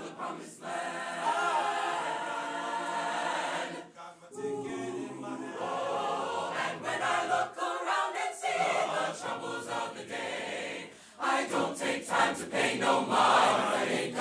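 Mixed choir singing a cappella, with held chords in long phrases and short breaks about four seconds in and again around eleven seconds.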